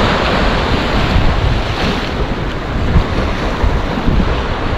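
Surf washing and breaking against the boulders of a rock groin, with gusty wind rumbling on the microphone.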